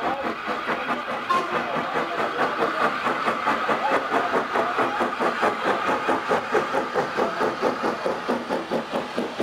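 Steam tank locomotive running into the platform with its coaches, with a quick, even, rhythmic beat.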